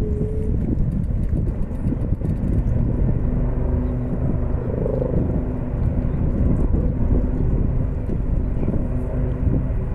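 Two Royal Navy Black Cats display helicopters flying over the water, their engines and rotors heard as a steady drone.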